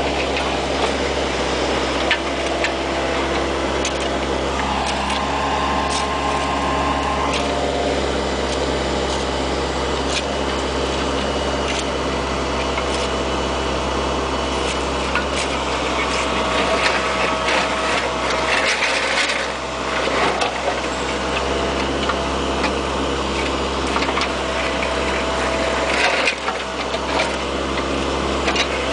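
Bobcat 430 ZHS mini excavator working: the diesel engine runs steadily under a hydraulic whine that changes pitch as the controls move, with scattered knocks and clatter from the bucket and arm.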